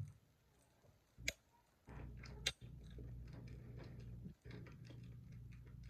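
A person chewing a jelly bean, faint, with scattered small clicks and a sharper click about a second in. A steady low hum comes in about two seconds in.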